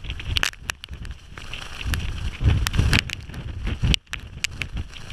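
Gusty wind buffeting the microphone in swelling low rumbles, strongest in the middle, with scattered sharp ticks.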